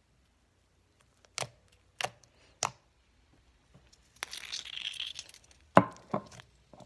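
Silly string aerosol can being handled and sprayed: three light clicks, then a hissing spray lasting about a second, then two sharp knocks, the first the loudest. The can is not spraying well.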